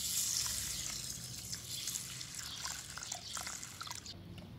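Water poured from a ceramic pitcher into a plastic basin of raw rice, splashing as the basin fills and covers the grains; the pour stops near the end.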